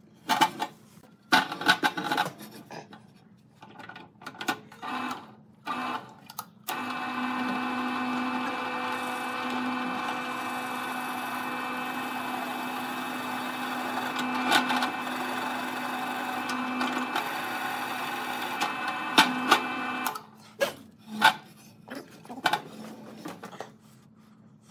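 Bench drill press running and boring holes into a thick wooden branch: a steady motor hum with the bit cutting through the wood for about thirteen seconds in the middle, with short choppy snatches of drilling, sharp knocks and brief silences before and after.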